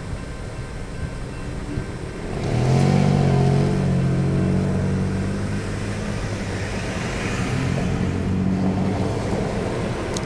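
Car engine pulling away from a stop: about two and a half seconds in it gets louder and its note rises, then runs steadily as the car moves off, with some road hiss.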